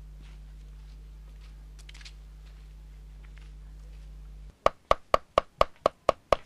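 A steady low hum, then from about two-thirds of the way in, a blade chopping on a wooden board in quick, even strokes, about four a second.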